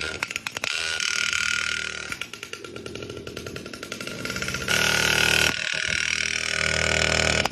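Small two-stroke engine of a mini pocket superbike running through its loud exhaust, the throttle opened in short bursts, the loudest about five seconds in. It has a sporty note.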